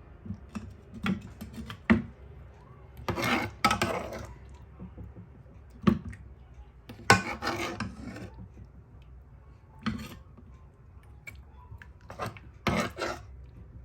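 A serving spoon clinking and scraping against a pot and dish as soup is dished out. The sound comes as scattered sharp clinks with a few short scraping bursts.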